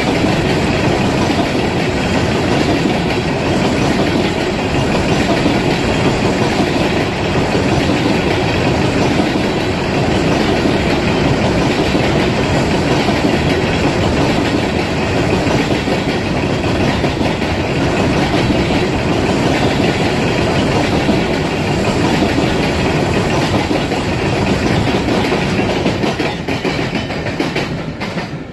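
Coal train's hopper wagons rolling past on the rails, a loud steady noise of wheels on track that fades near the end as the last wagon goes by.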